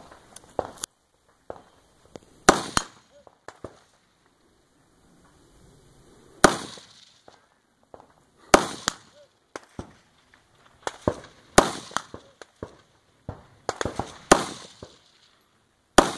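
Firearm shots fired singly by a competitor working through a 3-gun stage, about a dozen sharp bangs at uneven spacing of one to four seconds, some louder than others.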